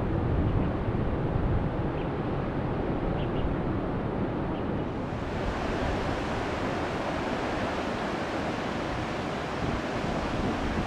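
Strong wind blowing steadily across the microphone, with the wash of the sea beneath it.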